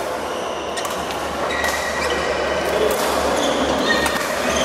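Badminton rally in a large hall: several sharp strikes of rackets on the shuttlecock, with short squeaks of shoes on the court floor over a steady hall din.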